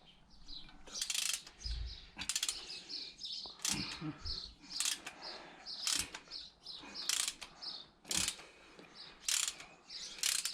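A ratcheting mechanism worked in short rasping strokes, about one a second.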